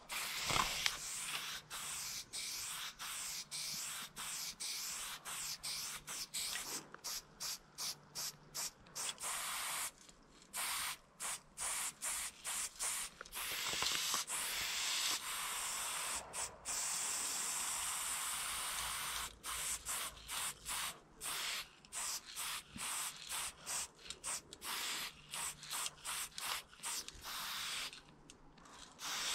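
Aerosol spray paint can hissing in many short bursts, broken by a few longer sprays lasting several seconds in the middle.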